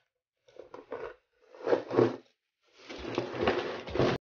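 Cardboard packaging scraping and rustling as the box is opened and its inner tray slid out, with the plastic bag around the hair brush crinkling. Scattered scrapes at first, then a steady rustle for over a second that cuts off suddenly.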